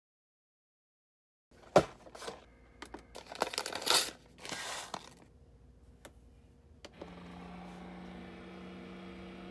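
A paper packet of instant oatmeal being torn open and crinkled, with a sharp click just before it. About seven seconds in, a single-serve coffee brewer starts a steady hum as its pump starts up to dispense hot water.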